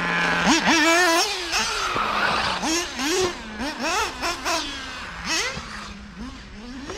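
The 3.5 cc Ultimate M5 two-stroke nitro engine of a Mugen MBX7R 1/8 buggy revving up and down over and over as the buggy is driven, dropping back to idle between bursts. It grows fainter toward the end.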